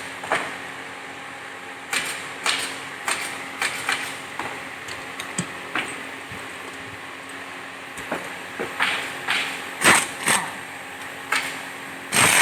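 Irregular knocks and clacks of wooden chairs being handled and fitted together, several louder bangs near the end, over a steady low hum.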